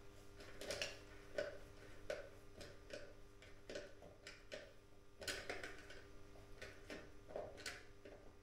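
Light, irregular clicks, about two a second, from hands working at the valve and rim of a bicycle's front wheel while fitting a new inner tube, over a faint steady hum.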